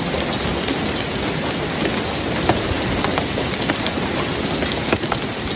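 Hailstorm: a steady dense hiss of falling hail and rain, with many sharp separate clicks of hailstones striking parked cars and the ground.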